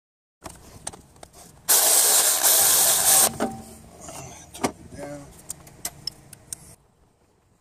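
A loud, steady hiss lasting about a second and a half, among small clicks and metallic clinks of hand work on the engine's timing-belt end.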